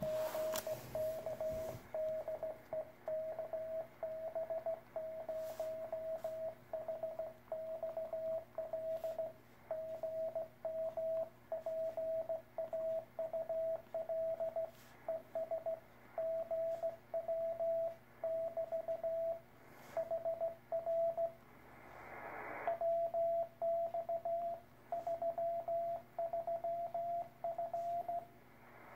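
Morse code (CW) from an amateur radio receiver: a single steady beep keyed on and off in a continuous run of dots and dashes over faint band hiss. A short burst of static hiss breaks in twice, once past the two-thirds mark and once at the end.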